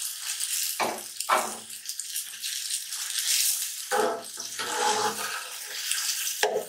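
Sliced onions sizzling in hot oil in an aluminium pot, a steady hiss. A spoon scrapes and knocks against the pot a few times as the onions are stirred, about a second in, around four to five seconds in, and near the end.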